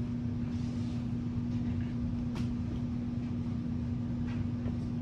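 Steady low machine hum with a constant drone, and a couple of faint clicks.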